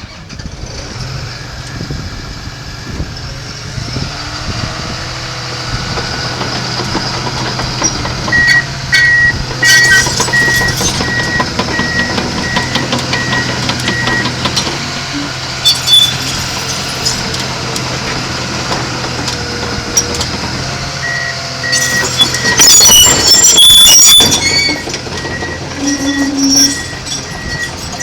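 Komatsu D61PXi-23 crawler dozer running, its diesel engine humming steadily. Its back-up alarm beeps evenly in two spells while it reverses, and its steel tracks clank and squeal, loudest a little after two-thirds through.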